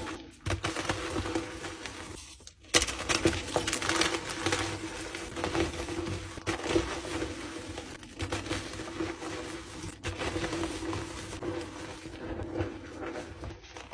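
Blocks of dyed gym chalk crushed by hand, crunching and crumbling in irregular crackles, with a brief break and a sudden loud crunch about two and a half seconds in. A steady low hum runs underneath.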